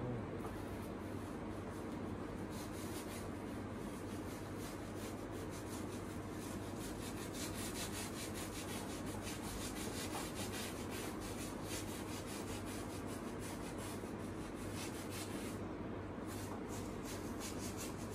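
Wide flat paintbrush scrubbing paint onto a large canvas in quick back-and-forth strokes, a dry rasping rub at several strokes a second. The strokes begin a couple of seconds in and break off briefly near the end before a few more, over a steady low hum.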